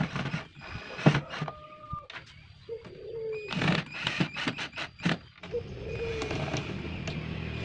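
Cordless drill-driver driving screws through rubber feet into a plywood cabinet top: clicks and short bursts, then a steadier run in the last two seconds. A bird calls in the background.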